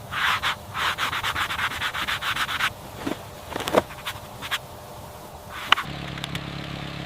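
Wood being sanded in rapid back-and-forth strokes for about two and a half seconds, followed by a few separate knocks. Near the end a power tool starts up and runs steadily.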